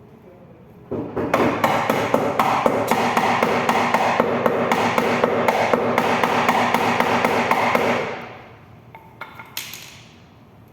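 Hammer tapping out a dent in rapid, even blows, about five or six a second, with a steady ring under them. The blows start about a second in and stop after about seven seconds. A few lighter knocks follow near the end.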